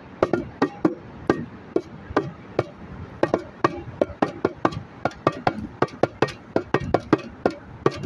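Bongo drums played by hand: a quick, uneven run of sharp strikes, several a second, with short ringing tones between them.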